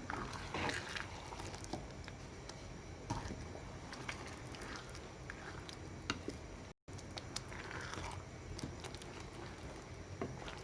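A spoon or spatula stirring mushrooms into tomato sauce in a pan: soft wet squelching and scraping with scattered light clicks against the pan. The sound cuts out for an instant about two-thirds of the way through.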